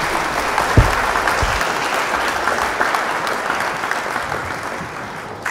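Applause from a group, an even clatter of clapping that slowly fades out toward the end, with a low thump about a second in.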